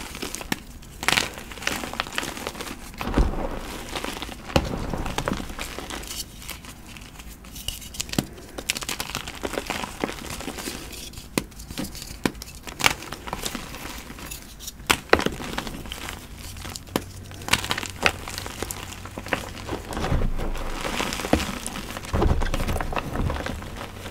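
Blocks of gym chalk crunching and crumbling, a run of irregular crackles and sharp snaps.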